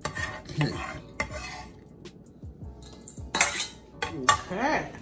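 Chef's knife blade scraping across a wooden cutting board and into a stainless steel mixing bowl, in about four short scrapes.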